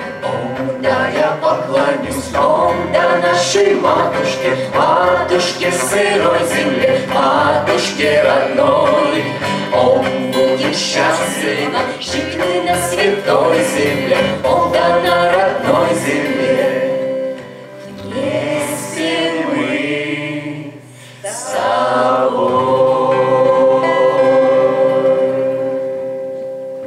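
A group of adult and child voices singing a song together in unison, over two strummed acoustic guitars. About 17 seconds in the sound thins out briefly, then the voices come back on a long held note that fades near the end.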